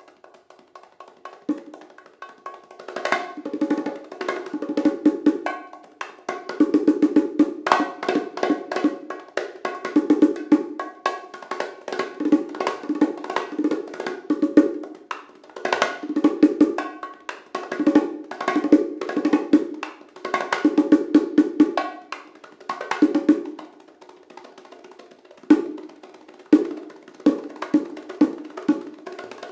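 A pair of bongos played by hand as a solo: fast runs of finger and palm strokes on the two drumheads, with sharp slaps, in phrases broken by brief lulls.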